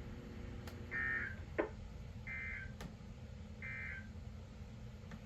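Emergency Alert System end-of-message data bursts from a radio's speaker: three short, evenly spaced buzzy chirps about a second and a half apart, signalling the close of the severe thunderstorm warning broadcast. A sharp click falls between the first and second burst.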